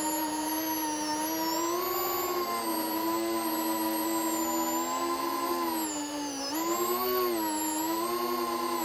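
FPV drone's electric motors and propellers whining steadily, the pitch shifting with throttle; the tone drops about six seconds in and rises back a second later.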